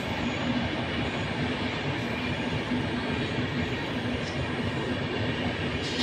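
Express passenger train hauled by a WAP-7 electric locomotive running past at a distance: a steady running noise of wheels and coaches on the track, with a short click near the end.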